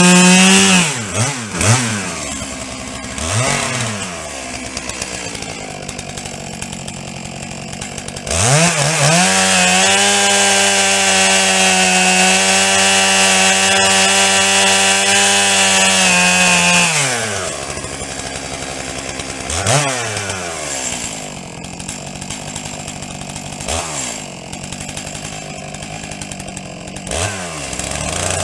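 Stihl 661 chainsaw with square-ground full-chisel chain: it drops from cutting speed to idle about half a second in and is revved briefly a few times, then runs at full throttle through dry seasoned oak for about nine seconds before dropping back to idle with a few more short revs. Through the cut the engine stays slightly high in revs, which the sawyer takes as a sign that the depth gauges are a little too high, so each tooth takes too shallow a bite.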